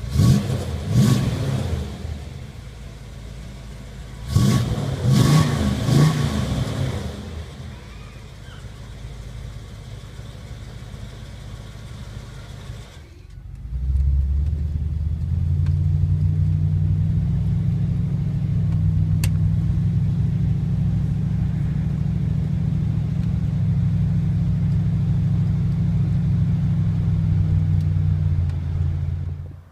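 Chrysler 440 big-block V8 through a dual 2.5-inch exhaust with Magnaflow resonators, idling and blipped twice in the first few seconds. After a short break, a steady deep, low exhaust hum runs on to near the end.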